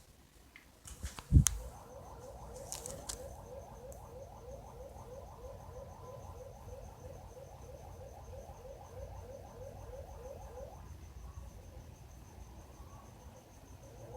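An unidentified repeating chirp, about three short rising chirps a second, which sounded soft at first and was first taken for a car alarm; it stops about eleven seconds in. A single thump just over a second in.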